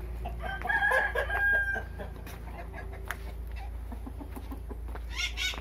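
A rooster crowing once, a long held call starting about half a second in, followed near the end by a quick run of short clucks.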